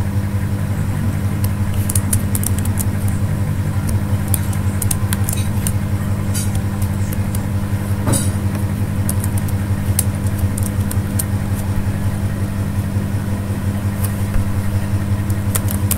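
Steady low electrical hum, with scattered light computer keyboard key clicks as code is typed.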